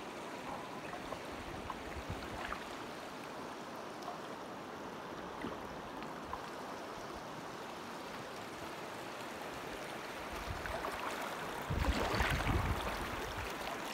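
Shallow river water running steadily around a drifting packraft. Near the end, a louder low rumble rises over it for a second or two.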